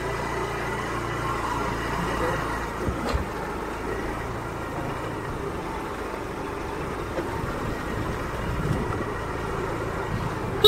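A small motor two-wheeler's engine running steadily as it rides along, with road and wind noise on the handlebar-mounted phone's microphone. There is one brief knock about three seconds in.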